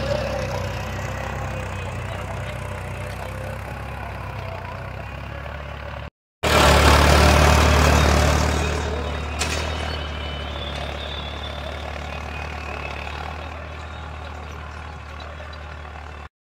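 Farm tractor engine running steadily. About six seconds in there is a brief break, after which the engine is louder and then gradually fades.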